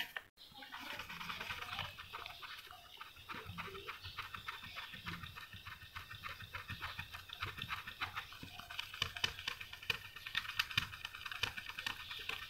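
A green 3M sponge sanding pad scrubbing quickly back and forth over the gloss clear-coated plastic body of a model car, a faint dry scratching of many short strokes. The sanding levels dust specks trapped in the clear coat.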